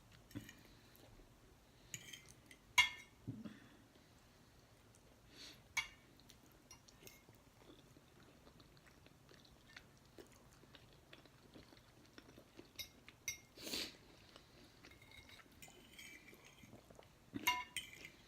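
Quiet eating sounds: soft chewing with scattered sharp clicks and clinks of cutlery on dishes, the loudest click about three seconds in.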